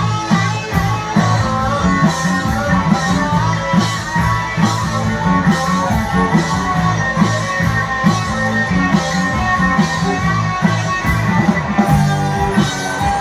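A live rock band playing, with electric guitar over drums keeping a steady beat.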